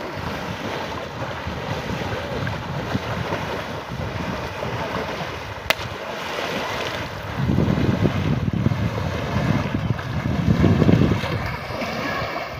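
Several people wading and running through shallow water, splashing heavily, the splashing loudest in the second half, with wind buffeting the microphone.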